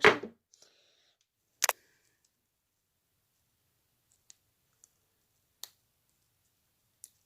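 Small plastic earbud knocking against a hard surface as it is thrown to crack it open: a sharp click right at the start, a louder one just under two seconds in, then a few faint ticks spread over the following seconds.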